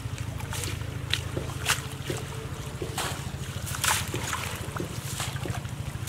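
Wind buffeting the microphone in a steady low rumble, with scattered short splashes and rustles as a wet fishing net is hauled out of shallow water; the loudest come about a second and a half in and near four seconds.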